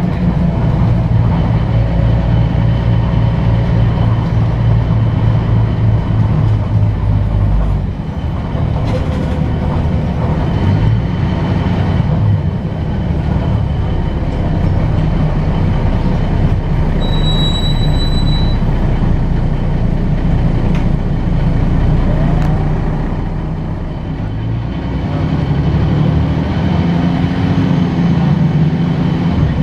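Articulated city bus running under way, heard from inside the passenger cabin: a steady low engine and driveline drone over road noise. The engine note changes about eight seconds in, and the level dips briefly near the end before building again.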